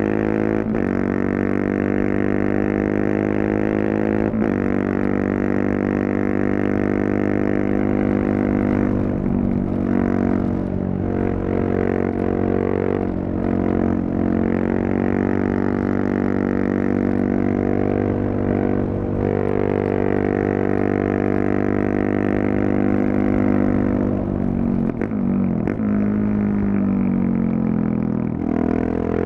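KTM 690 Duke's single-cylinder engine running through a Leovince decat and slip-on exhaust while being ridden: a steady, deep exhaust note under throttle. Several times it briefly dips and glides in pitch as the throttle is eased and the engine speed changes, then settles back into the steady note.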